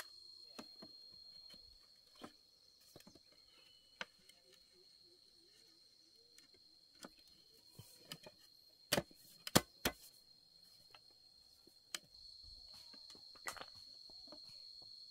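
Hollow knocks and taps of bamboo tubes being handled and fitted into a jointed frame: scattered light taps, then three sharper knocks about nine to ten seconds in. Behind them is a steady high chirring of insects, fainter through the middle.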